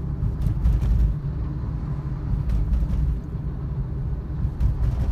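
Steady low rumble of a car driving, heard from inside the cabin: engine and tyre noise.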